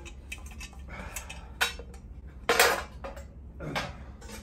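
Loose chrome motorcycle parts clinking and clattering as they are handled and set down, a series of sharp metal knocks with the loudest clatter a little past halfway.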